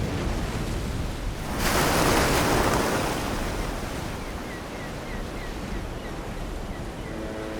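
Rushing water, with a louder surge of water about a second and a half in, then a steady rush.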